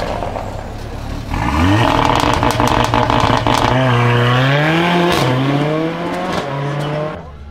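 Mercedes-AMG A45's turbocharged 2.0-litre four-cylinder revving up as the car pulls away, then accelerating hard through about three quick upshifts, the pitch dropping and climbing again at each one before it fades into the distance.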